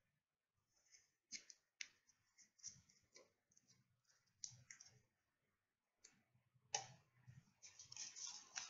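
Near silence broken by a few faint, sharp clicks spaced a second or more apart, then a short run of soft handling noises near the end.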